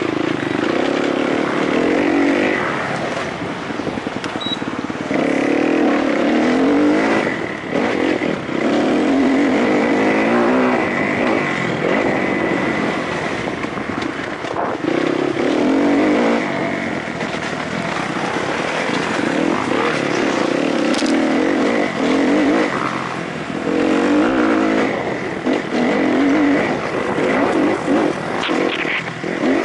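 Kawasaki KX-F four-stroke single-cylinder motocross engine heard on board, repeatedly revving hard and backing off every few seconds as the bike is ridden over a rough dirt cross-country track.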